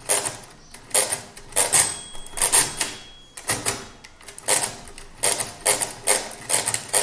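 Facit pinwheel mechanical calculator being cranked by hand, its gears and counter wheels clattering in a quick burst with each turn, about ten turns in a row, as it works through a division by repeated subtraction.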